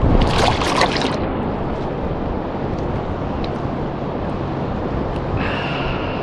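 Steady rush of wind and surf with a low motor hum, like an outboard boat running on the water. A short burst of splashing comes just after the start, as the netted fish thrashes at the surface, and a thin high steady whine comes in near the end.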